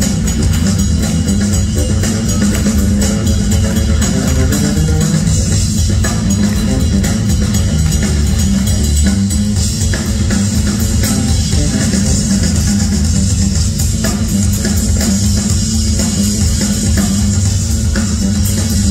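Live instrumental rock band playing loud: a full drum kit pounding along with distorted electric guitar and bass.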